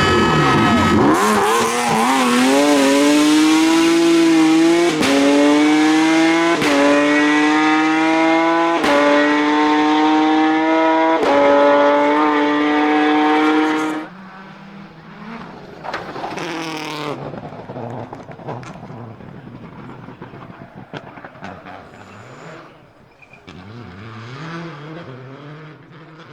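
Rally car engine at full throttle, accelerating hard up through the gears: the pitch climbs in each gear and drops back at four quick upshifts. About fourteen seconds in the sound cuts off abruptly, leaving fainter engine revving that rises and falls.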